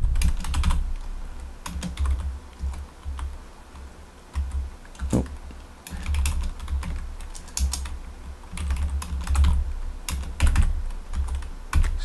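Typing on a PC computer keyboard: runs of keystroke clicks with short pauses between them.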